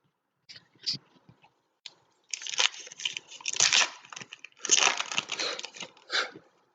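Foil trading-card pack wrapper being torn open and crinkled by hand: a few short crackles, then a longer stretch of dense crinkling.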